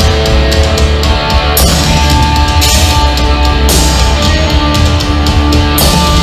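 Heavy rock band playing live: electric guitar, bass guitar and drums, loud and dense, with a crash about every two seconds.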